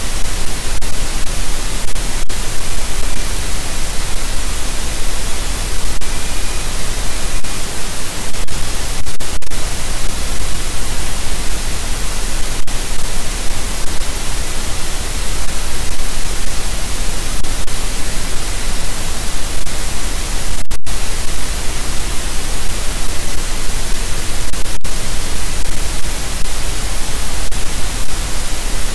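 Loud, steady static hiss from a nest camera's audio feed, broken by a few split-second dropouts.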